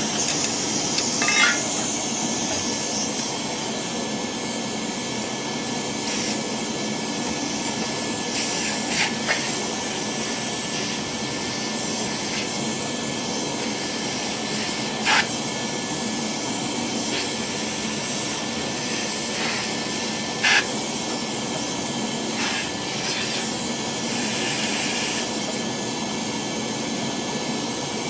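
A steady rushing hiss, with a few short sharp clicks or scrapes on top of it.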